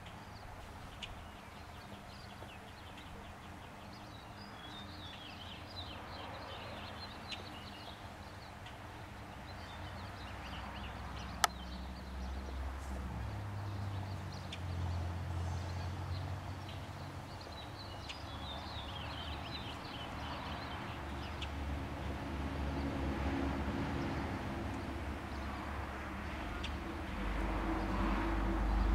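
Honey bees buzzing among weeping cherry blossoms: a low hum that swells and shifts in pitch, loudest near the middle and again at the end. Small birds chirp in two quick runs of high notes, and there is one sharp click near the middle.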